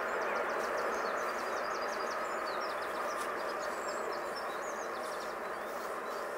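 Jet airliner engine noise from a distance: a steady rushing that slowly fades, with small birds chirping over it.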